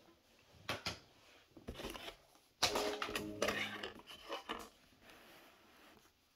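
Handling noise of small objects and the phone being shifted about on a table: a string of irregular knocks and rattles, busiest from about two and a half to three and a half seconds in.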